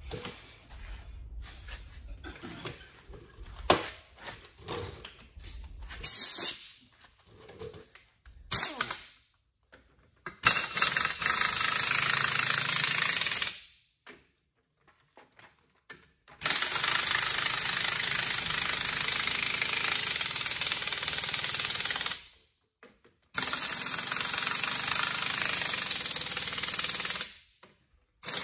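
Pneumatic impact wrench hammering on a heavy truck's front wheel lug nuts. It starts with a few short bursts, then runs in three long stretches of several seconds each with short pauses between them. Before the first burst there is quieter clatter of tool handling.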